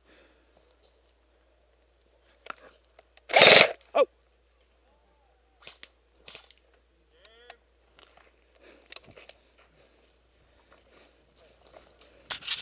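Airsoft gun firing: a short burst about three and a half seconds in and a single shot just after, then more sharp shots near the end. Faint crackles in between.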